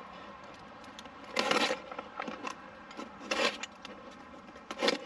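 A small cardboard box of weight-distribution hitch hardware (shackles, nuts, bolts) is cut open with a knife and handled, and the loose metal parts inside clink and rattle in a few short bursts.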